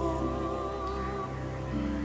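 Soft, slow background music with sustained tones and a wavering melody.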